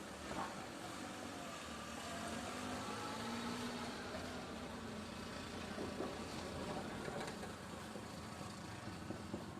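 A motor vehicle running steadily, a continuous low rumble with no clear changes.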